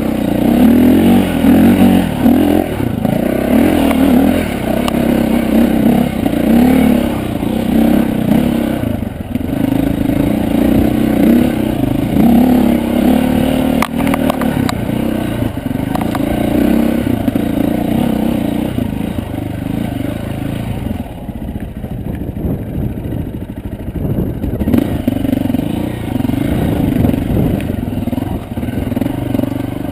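Dirt bike engine revving up and down unevenly as it climbs a steep, rocky single-track trail, with knocks and clatter from the rocks. It eases off briefly about two-thirds of the way through.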